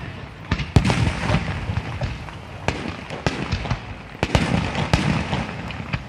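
Aerial fireworks display: shells bursting in the air with a sharp bang about every second, the loudest about a second in, over continuous crackling.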